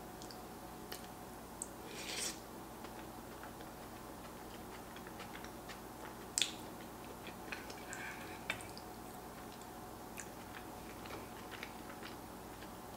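Close-miked eating: quiet chewing of baked macaroni and cheese, with scattered soft mouth clicks. A short louder noise comes about two seconds in, and a sharp click as the metal spoon goes into the mouth a little after six seconds.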